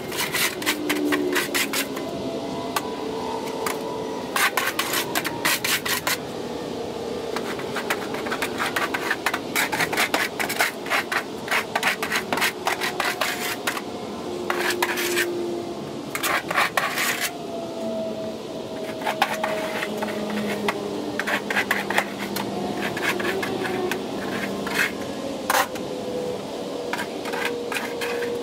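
Plastic scoop shovel scraping across a concrete floor in repeated runs of short, rasping strokes with brief pauses, clearing dirt and goat manure.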